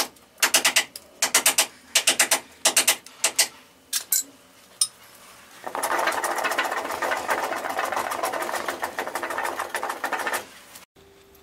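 Hand tool shaving wood on a boat's stem, trimming the plank rebate so the garboard plank will sit: a run of quick sharp strokes, then from about halfway a continuous fast rasping that stops abruptly near the end. The sound is sped up along with the picture.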